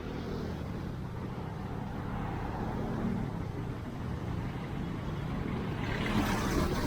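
Street traffic noise: a steady low rumble of vehicles, swelling into a louder rush near the end.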